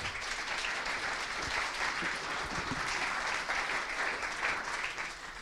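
Audience applauding: steady, dense clapping that thins out near the end.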